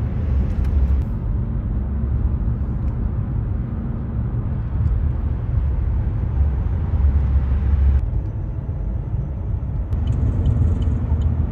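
Steady low rumble of road and tyre noise heard inside a car's cabin while driving at highway speed.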